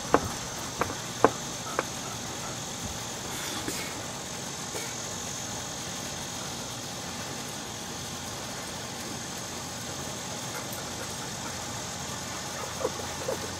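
Steady, high-pitched chorus of cicadas, with four sharp knocks in the first two seconds and two more near the end.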